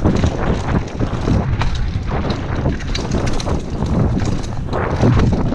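Wind buffeting the microphone of a helmet camera during a fast downhill mountain-bike descent, over the rumble of knobby tyres on a rough dirt trail. Frequent clicks and knocks from the bike's chain and frame rattling over roots and bumps.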